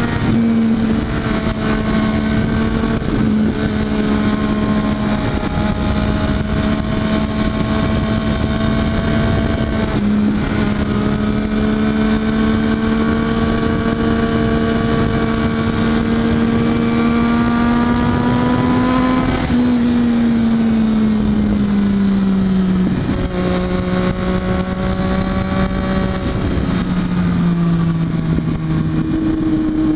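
Triumph Daytona 675R motorcycle engine running at a steady, slightly rising note for most of the time. About two thirds of the way through it falls away in several downward steps, then picks up sharply near the end.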